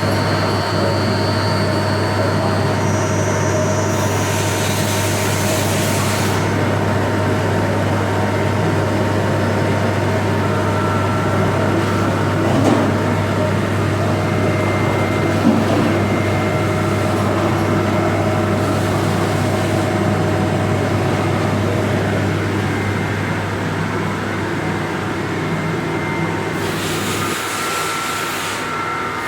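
Heckert CWK 400 D horizontal machining centre running under power: a steady low machine hum with several steady whining tones, a high whine that steps up in pitch early on, and two short bursts of hiss, one a few seconds in and one near the end.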